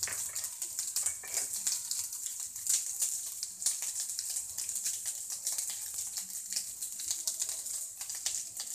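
Fried rice with cabbage and bell peppers frying in oil in a pan over high heat: a steady sizzle with many small irregular crackles.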